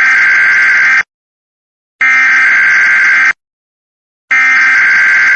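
Emergency Alert System SAME digital data bursts: three loud bursts of data tones, each a little over a second long, about a second apart.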